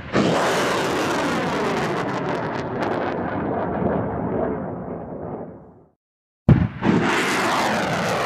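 Rocket launch sound effect: a sudden blast followed by a steady rumbling roar that fades out about six seconds in, then after a short silence another blast starts the roar again.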